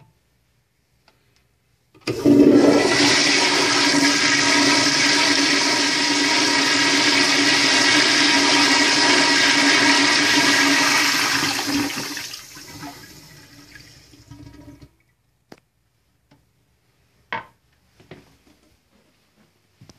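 Crane Santon toilet flushing through its flushometer valve: a sudden rush of water starts about two seconds in, runs loud and steady for about ten seconds with a steady tone in it, then tapers off and stops.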